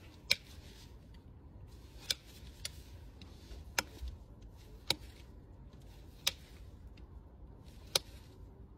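Farrier's nippers snapping at the edge of a shod horse hoof: seven sharp, separate clicks at irregular intervals of about one to one and a half seconds.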